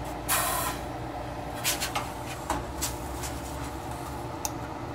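Light clicks and clinks of stainless steel pots as a small saucepan of caramel is set into a larger water-bath pot, after a short rustle about half a second in, over a steady low hum.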